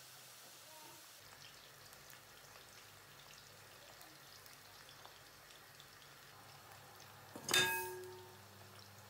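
A pan of chicken stock simmering faintly, with small clicks and scrapes of a wooden spatula. About seven and a half seconds in, a single loud ringing clank of cookware being knocked as the whole boiled chicken, nearly dropped, is lifted out of the pan.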